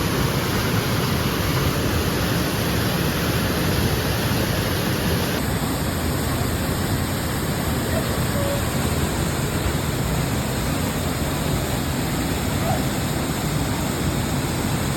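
Waterfall: a steady, loud rush of falling water, with a slight change in its high hiss about five seconds in.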